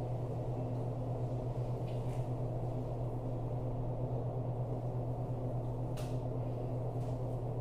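Steady low machine hum of running kitchen equipment, with a faint click about six seconds in.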